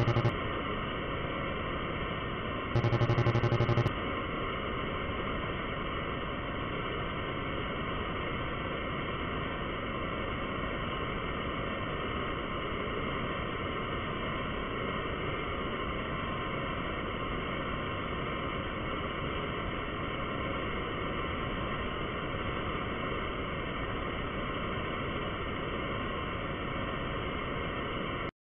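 A steady, noisy rumbling drone like static, cutting off abruptly near the end. A loud, low buzzing tone sounds briefly at the very start and again for about a second around three seconds in.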